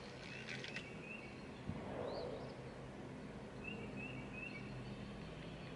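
Quiet outdoor ambience: a bird chirping in short high notes several times, with a run of three quick chirps about two thirds of the way in, over a low steady hum.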